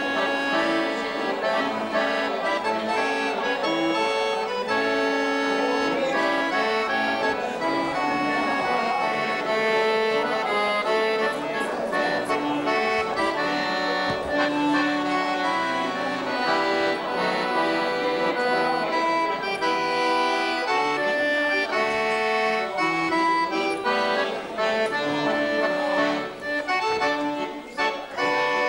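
Button accordion playing a tune, a melody of changing notes over sustained reed tones.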